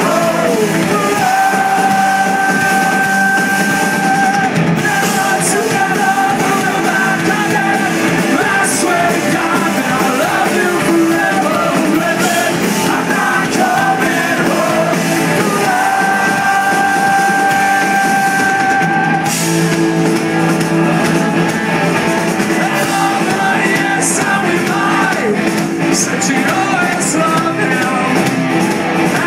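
Punk rock band playing live: electric guitars, bass, drums and sung vocals, loud and steady, with a long held note a second or so in and again a little past halfway.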